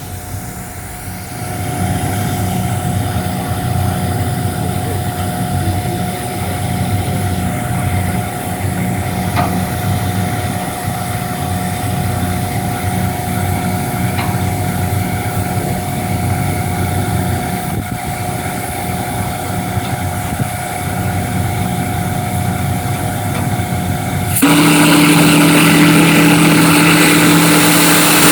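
12-inch Crosby three-note single-bell chime steam whistle, its integral balanced valve pulled fully open: about 24 seconds in it comes in suddenly at full volume, a loud, deep, steady chord with a hiss above it. Before that a steady low rumble runs underneath.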